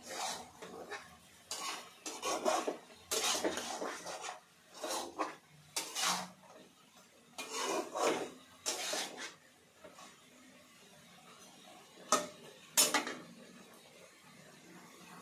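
Steel spatula scraping and knocking against a metal kadai as chicken pieces are stirred while frying, in irregular strokes for about ten seconds, then two sharp metal clanks near the end.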